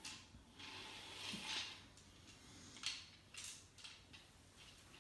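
Faint scraping and a few soft clicks of wooden beads being slid along the rods of a toy abacus by a child's hand.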